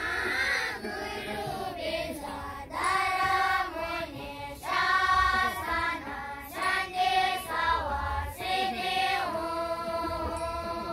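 A group of young voices, the young novice monks, singing a song together in unison in melodic phrases broken by short pauses every second or two.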